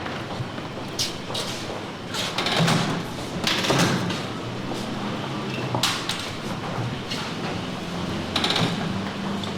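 A recorded mechanical sound effect: a series of sliding, scraping strokes, one every second or two, over a low steady hum.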